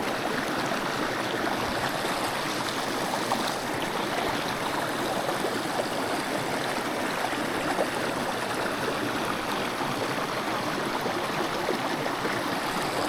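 Small mountain brook running over rocks: a steady rush of flowing water.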